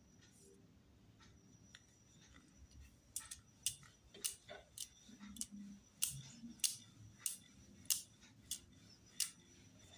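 A wooden rolling pin rolls out dough on a floured counter. Starting about three seconds in, light sharp clicks come about every half second as the pin knocks the counter with each stroke.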